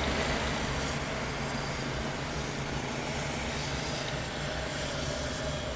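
Airbus A319 jet engines: a steady low rumble under a broad hiss, slowly fading as the airliner moves away down the runway.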